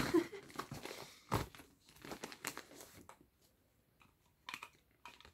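Gift-wrapping paper crinkling and rustling as it is folded around a small present, with sharp crackles through the first few seconds, a short pause, then a few more crackles near the end.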